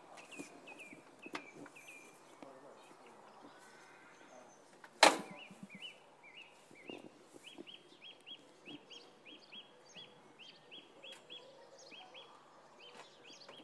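Faint bird chirps, short and repeated about three times a second, with one sharp click about five seconds in.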